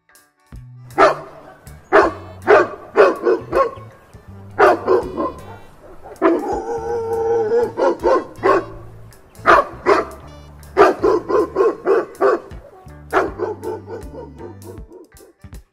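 A dog barking in quick runs of short, sharp barks, with one longer drawn-out call with a wavering pitch about six seconds in, over quiet background music.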